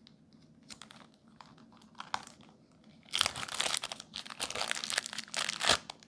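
Thin clear plastic bag crinkling as it is handled and opened: faint scattered rustles at first, then a dense, louder crackling from about halfway through.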